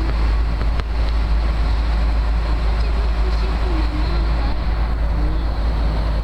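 Steady roar of airliner cabin noise in flight, with engine and airflow noise heavy in the low rumble.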